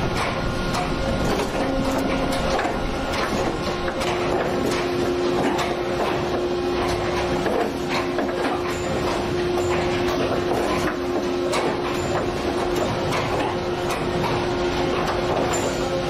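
Sawmill log sorting conveyor running: steel chains clattering with frequent knocks as the logs ride along, over a steady machine hum.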